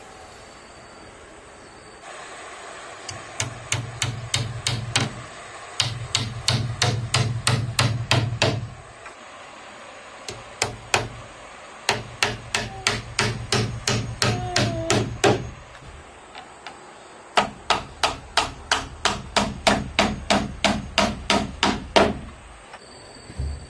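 Hammer driving nails into wooden boards: runs of quick, even blows, about three to four a second, with short pauses between the runs.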